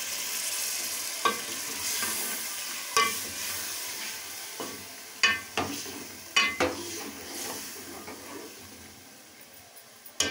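Potato-and-chicken curry sizzling in an aluminium pot just after a glass of water has been added, the hiss slowly dying away, while a steel ladle stirs it and clinks sharply against the pot about half a dozen times.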